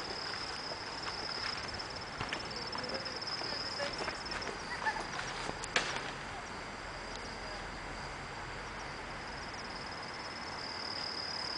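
A cricket trilling steadily at a high pitch. It fades away midway and swells back near the end. A few faint ticks and crunches are heard, with one sharper click about six seconds in.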